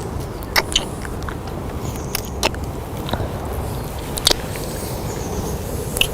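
Kissing: several short, wet lip smacks at irregular intervals over steady background noise.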